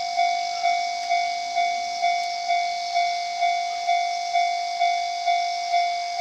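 Japanese railway level-crossing warning bell ringing with a repeated clanging tone, about two strikes a second, each dying away before the next. This is the alarm that warns of an approaching train.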